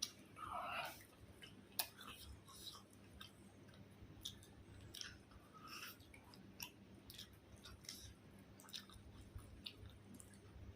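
A person chewing food close to the microphone: soft, irregular wet clicks and smacks of the mouth, with a louder short burst near the start.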